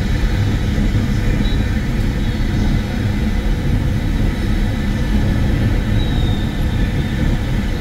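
Car driving at motorway speed: a steady rumble of tyres, engine and wind that does not change.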